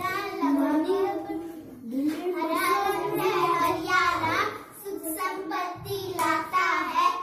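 Two young girls singing a Hindi children's poem about the flag together, in sing-song phrases.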